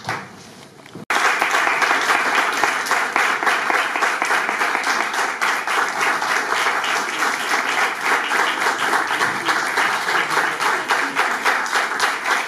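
Audience applauding steadily. The clapping is much quieter for about the first second, then cuts in abruptly at full level.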